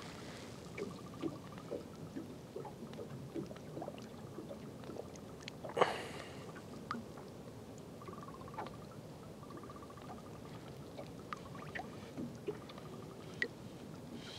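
Faint water sounds at the boat's side, small trickles and splashes as a zander is held in the water and released. One louder splash comes about six seconds in.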